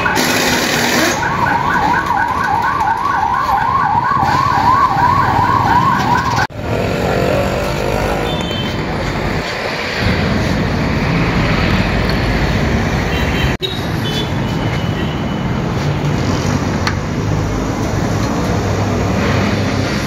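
A siren wailing in a fast up-and-down yelp, about three sweeps a second, which stops abruptly about six and a half seconds in. A steady noisy background of traffic and workshop sound follows.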